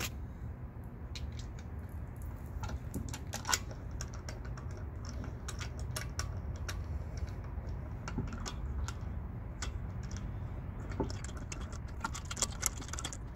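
Light metallic clicks and clinks of lug bolts being threaded by hand into a wheel hub, irregular and coming thicker near the end, over a steady low background hum.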